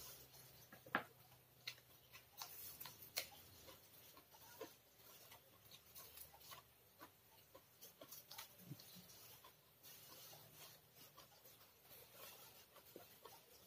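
Faint eating sounds: a person chewing and crunching food eaten by hand, with many scattered crisp clicks and light taps.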